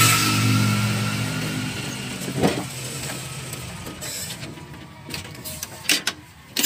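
A motor vehicle's engine passing by, loudest at the start and fading away over the first two and a half seconds, with a faint whine above it. A single knock comes about two and a half seconds in, and a few sharp clicks come near the end.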